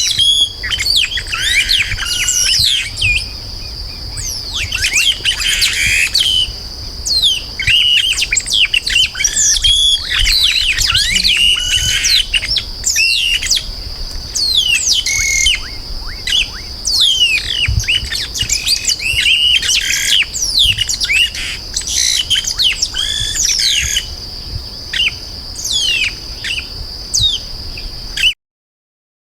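Yellow-rumped marshbirds (chupim-do-brejo) calling, a dense run of quick, sharply falling chirps and whistles with a steady high whine beneath them. The sound cuts off suddenly near the end.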